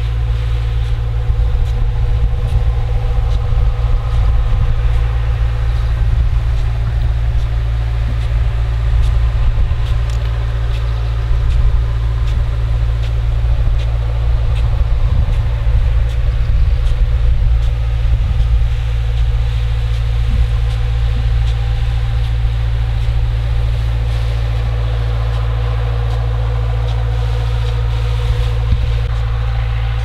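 A John Deere four-cylinder turbodiesel engine driving a 1200 gpm irrigation pump at 40–45 psi, heard from about a quarter mile away. It makes a steady, unbroken low drone with a few steady higher tones over it.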